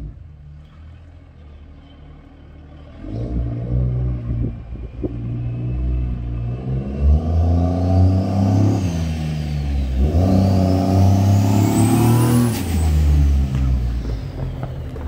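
Lifted pickup truck's engine accelerating toward and past the listener: faint at first, then loud from about three seconds in, its pitch climbing and dropping back twice as it shifts gears. A high whine climbs along with the engine and falls away near the end.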